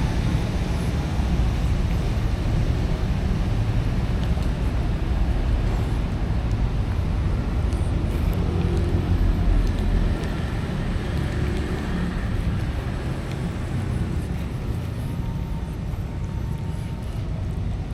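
Steady low outdoor rumble, like road traffic, with no distinct events standing out.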